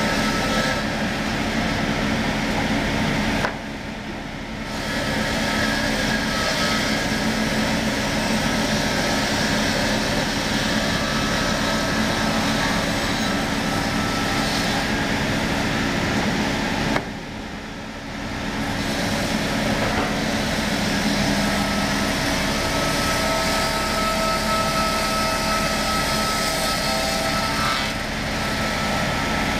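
Powered woodworking saw machine running and sawing a wooden cant into boards: a steady, loud mechanical noise that drops briefly twice, about four seconds in and again around seventeen seconds in.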